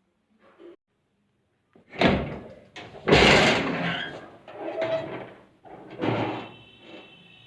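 Metal almirah doors being opened and banged shut: a clank about two seconds in, the loudest bang a second later, then further clanks, the last with a metallic ring.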